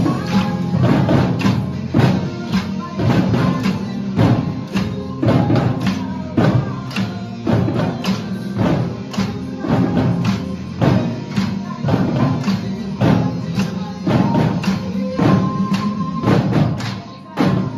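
A live percussion ensemble playing a song: a steady rhythm of drum hits over sustained pitched instruments underneath.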